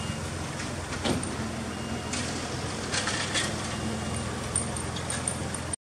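Suzuki Alto Works' 660 cc three-cylinder turbo engine idling steadily through an aftermarket KC Technica muffler, with a few sharp clicks and light rattles from handling inside the car. The sound cuts off suddenly near the end.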